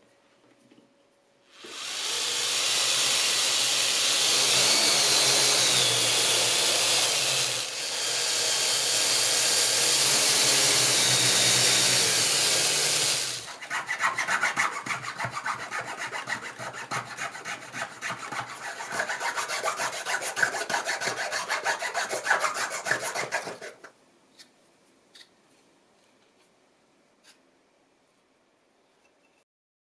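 A power drill runs steadily for about twelve seconds, with a brief dip partway, boring into a block of glued colored pencils. Then a hand file scrapes the block in quick, rapid strokes for about ten seconds, followed by a few faint clicks.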